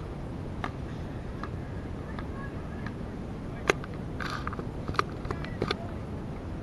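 Basketball dribbled on an outdoor asphalt court, bouncing about every three-quarters of a second. Then come a few sharper knocks, the loudest a little after halfway, over a steady low background noise.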